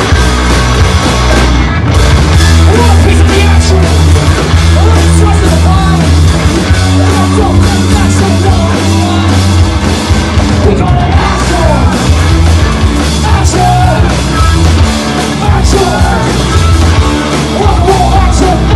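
Live punk rock band playing loud: distorted electric guitars driven over a pounding drum kit.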